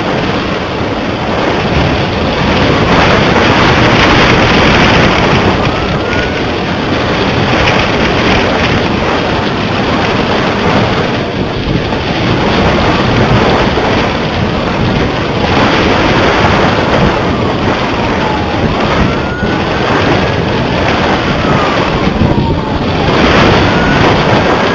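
Wind buffeting the microphone of a small camera carried aloft on a kite: a loud, steady rushing rumble that swells and eases in gusts.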